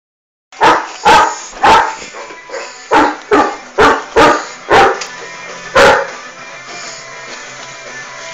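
Irish wolfhound barking, nine loud barks in the first six seconds, irregularly spaced, then stopping, with music playing underneath throughout.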